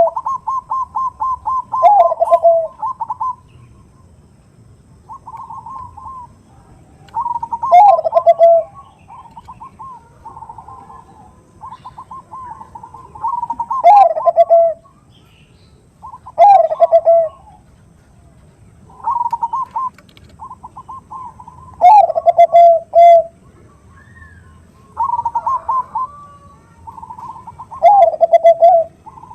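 Perkutut bangkok (Thai-bred zebra dove) singing: each phrase is a fast run of short staccato notes followed by a louder falling coo, repeated every two to three seconds.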